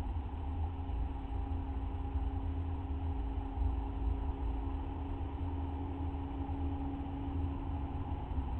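Steady low rumble with a faint steady hum over it: the constant background noise of a nest-box camera's microphone, with no distinct sounds from the feeding owl.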